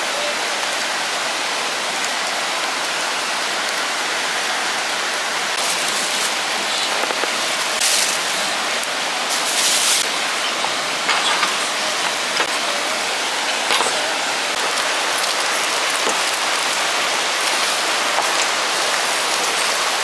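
Steady rain falling, an even hiss with a few brief louder patches about six, eight and ten seconds in.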